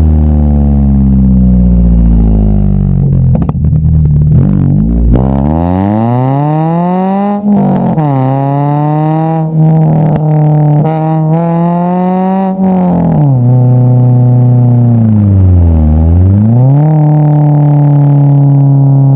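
Car engine with aftermarket exhaust headers revving, with a raspy exhaust note. The pitch falls at first, climbs sharply about five seconds in and holds high with a few short dips, then drops and settles to a steady, lower speed after a brief dip near the end.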